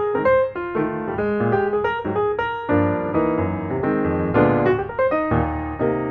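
Background piano music, with several notes sounding at once in quick succession.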